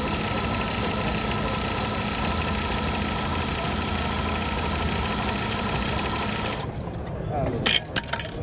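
Juki LZ-2290C direct-drive zigzag industrial sewing machine stitching a pattern through fabric at a steady speed, stopping about seven seconds in, followed by a few sharp clicks.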